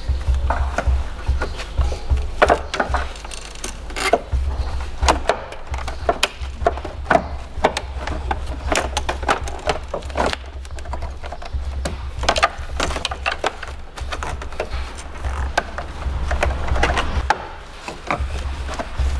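Screwdriver prying loose the clips of a plastic trim panel in a car's engine bay: a run of irregular clicks, taps and scrapes of plastic and metal, over a steady low hum.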